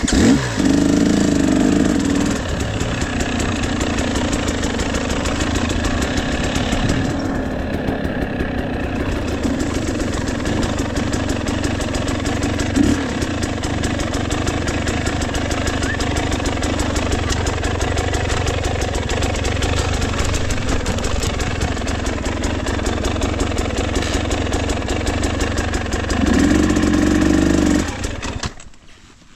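KTM 300 EXC two-stroke engine with a Pro Circuit exhaust, running steadily as the bike is ridden on a trail. It revs harder about a second in and again near the end, then drops away suddenly just before the end.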